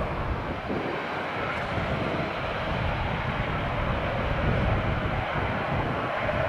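Ryanair Boeing 737's jet engines running at taxi power, a steady even noise with no distinct whine.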